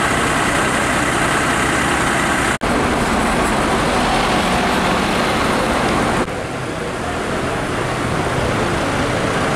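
Steady vehicle noise in the street: a fire engine's diesel idling with traffic around it. The sound breaks off for an instant about two and a half seconds in and drops slightly in level about six seconds in.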